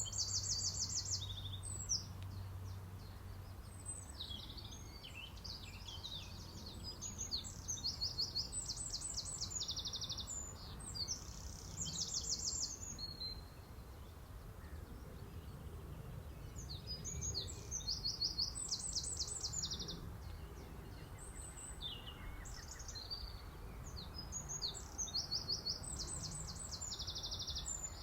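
Songbirds singing high, fast trills, each phrase a rapid run of evenly spaced notes, in bouts with quieter gaps near the middle and about three quarters through. Low background noise runs underneath.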